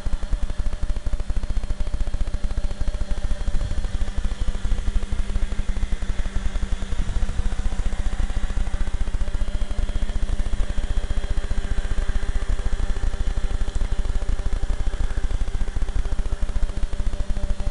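Tricopter's electric motors and propellers buzzing steadily in flight, a hum with slightly wavering pitch, under a dense crackling rumble of wind buffeting the microphone.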